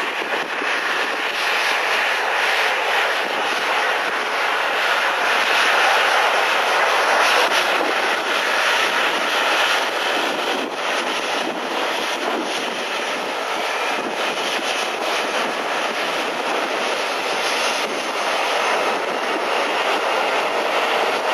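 Boeing 737-800's CFM56-7B turbofan engines running loud and steady, an even rush of jet noise.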